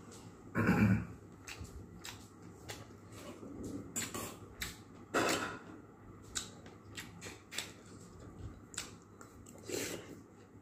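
Eating sounds: scattered clicks and taps of fingers and a metal spoon against a ceramic plate of steamed clams and rice, with chewing. A louder, fuller thud about a second in.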